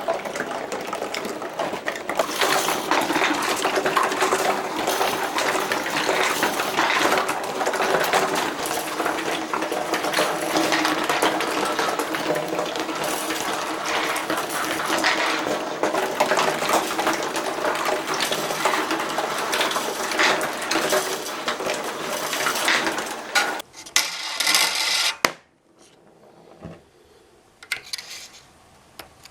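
Many glass marbles rolling and clattering along a marble run, colliding with each other and the track in a dense, continuous rattle of clicks. About 24 seconds in, the rattle thins to a few scattered, fainter clicks.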